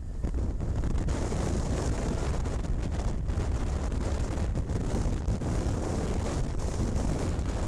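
Wind rushing and buffeting over a helmet-mounted camera's microphone on a moving motorcycle: a steady, loud, low rumble.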